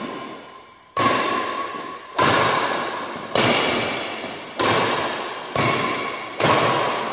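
Badminton rackets striking a shuttlecock back and forth in a rally, about six hits roughly a second apart. Each hit is followed by a long, echoing decay in the large metal-walled hall.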